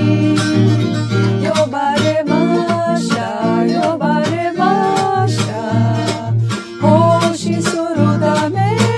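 A song sung in Japanese over a plucked guitar accompaniment with a steady bass line.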